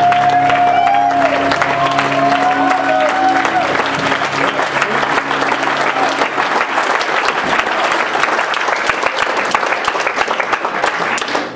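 Audience applauding with steady clapping, while the closing music fades out over the first few seconds.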